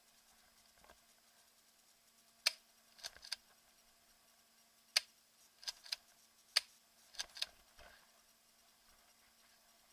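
Airsoft pump-action shotgun firing three times, each sharp shot followed about half a second later by two lighter clicks as the pump is racked back and forward.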